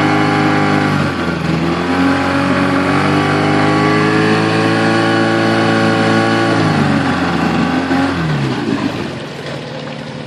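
Yamaha 8A engine running with a squeak noise. Its speed shifts about a second in, holds, then drops with a falling pitch about eight seconds in and gets quieter.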